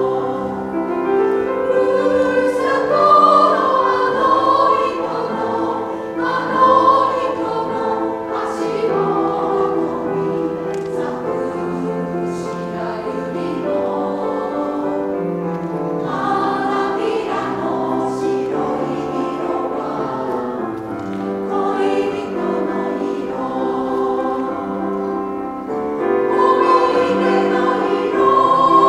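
Women's choir singing a slow Japanese song in Japanese, with grand piano accompaniment.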